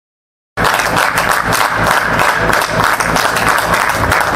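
Silence, then about half a second in a crowd starts applauding at once and keeps clapping steadily.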